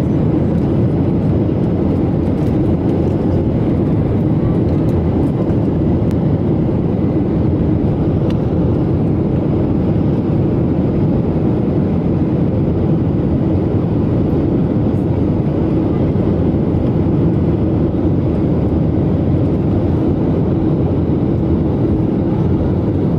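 Steady jet airliner cabin noise on approach: engine and airflow noise heard from inside the cabin over the wing, even in level throughout.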